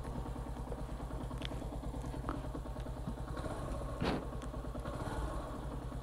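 Yamaha motorcycle engine idling with a steady, rapid pulse while the bike stands still, with a brief knock about four seconds in.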